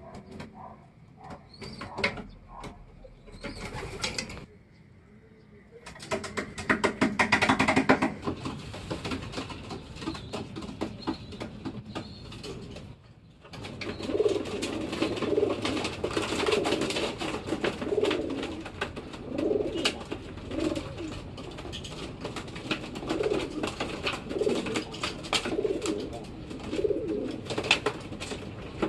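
Racing pigeons cooing over and over, low repeated coos that run steadily through the second half, with scuffling and clicking of the birds being handled and a louder scuffling burst about six seconds in.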